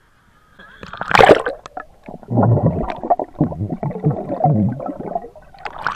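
Splash as the camera plunges under the sea surface, then about three seconds of muffled underwater bubbling and gurgling as a swimmer blows air out of his mouth, heard through a waterproof action camera underwater. A second splash near the end as it breaks back through the surface.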